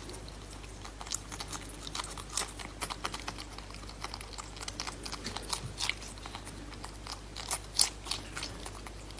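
Crunchy food being chewed: irregular crisp crunches and clicks, with a steady low hum underneath.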